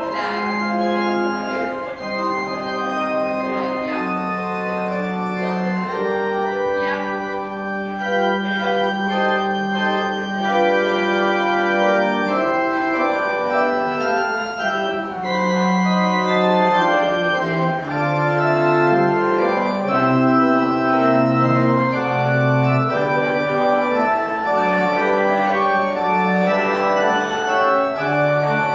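Organ music playing a slow piece of long held chords over a moving bass line, as at the close of a church service.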